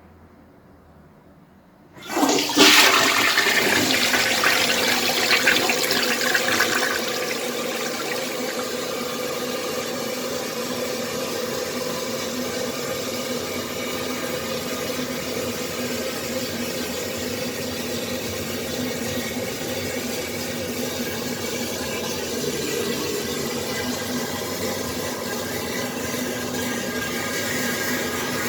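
Toilet flushing: a sudden rush of water about two seconds in, loudest for the first few seconds. It then settles into a steady, slightly quieter run of water with a faint hum that lasts to the end.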